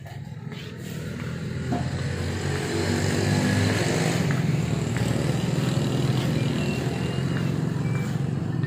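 An engine running steadily, growing louder over the first three seconds and then holding at a constant level.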